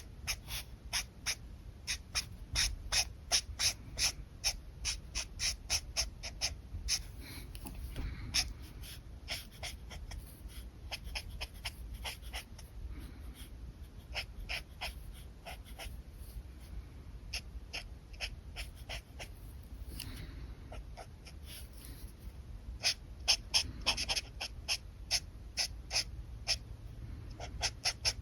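Alcohol marker tips scratching on paper in short, quick strokes, about three or four a second at the busiest, thinning out in the middle and picking up again near the end.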